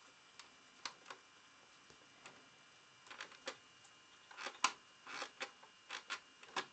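Light handling noises of monitor repair work: irregular small clicks and short scrapes of tools and parts, sparse at first and busier from about three seconds in.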